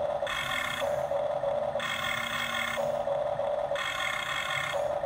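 Electric motors and gearboxes of a Huina 1550 RC toy excavator whining as the boom, bucket and upper body move. A steady hum runs throughout, and a higher, many-toned gear whine comes in three times for about a second each.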